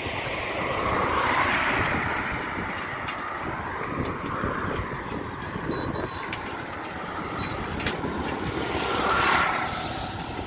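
Highway traffic going by, with vehicles passing close about a second in and again, louder, near the end.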